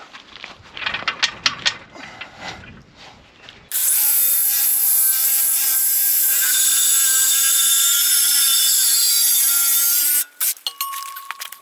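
A few clicks and knocks, then a Milwaukee Sawzall reciprocating saw starts about four seconds in and runs loudly at a steady pitch, cutting through steel irrigation pivot pipe. It stops suddenly about ten seconds in, followed by a few clicks.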